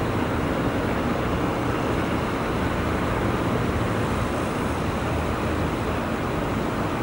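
Steady, even rumble of airport and road traffic, jet airliners taxiing mixed with passing vehicles, with no single sound standing out.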